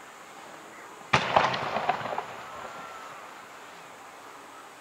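An aerial firework shell bursts with a sudden loud bang about a second in. A quick cluster of sharp pops follows for about a second, then a slowly fading echo.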